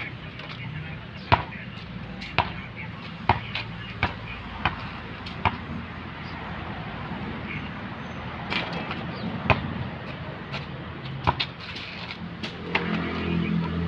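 Basketball bouncing on a paved outdoor court: sharp single bounces about once a second, with a pause of a few seconds in the middle.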